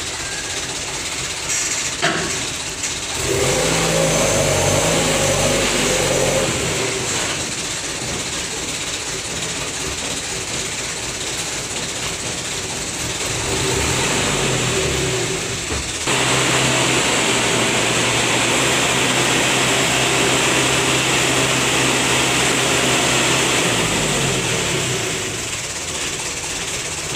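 Mitsubishi Fuso Canter dump truck's diesel engine running, with a louder spell of revving a few seconds in. About halfway through it is held at raised, steady revs for some eight seconds while the hydraulic hoist tips the bed up, then drops back to idle.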